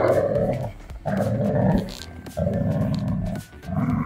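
Yellow Labrador retriever growling in play while tugging on a rope toy: about four long, rough growls with short breaks between them.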